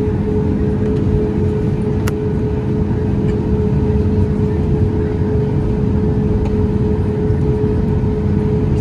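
Steady cabin noise of a Boeing 737 MAX 8: a constant deep rush of engine and airflow noise with a steady hum over it, and a faint click about two seconds in.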